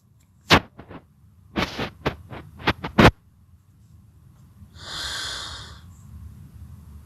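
A run of short sharp clicks and taps, then a short breathy hiss about five seconds in, over a low hum.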